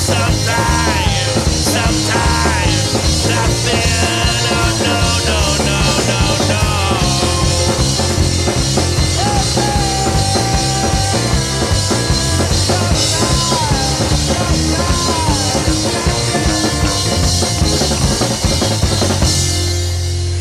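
Background music: a rock song with drums and a singing voice.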